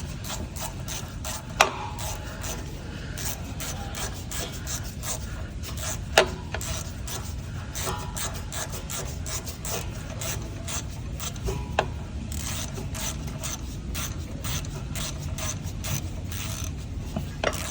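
Socket ratchet clicking in quick runs as bolts are worked down, with a few sharper metal clinks.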